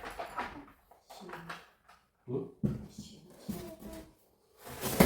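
A person talking in a small room, in short broken phrases, with a few brief knocks from objects being handled.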